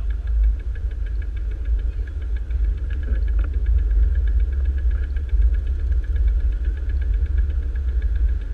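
Bicycle freewheel hub clicking in a rapid, even run while the bike coasts, over a steady low rumble of wind and road noise on the moving camera.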